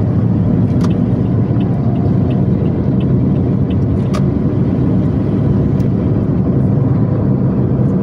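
Steady road and engine rumble inside a moving car's cabin as a bus passes close alongside and pulls ahead, with a couple of faint ticks.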